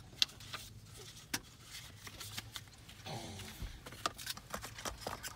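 Paper leaflets and the cardboard box of a phone's packaging being handled: light rustling with scattered sharp taps and clicks.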